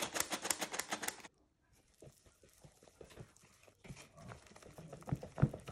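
Squeeze-handle metal flour sifter clicking in a quick, even rhythm, about eight clicks a second, as flour is sifted into batter; it stops about a second in. After that, a silicone whisk stirs thick pancake batter in a bowl, with softer, irregular strokes and a few light knocks against the bowl.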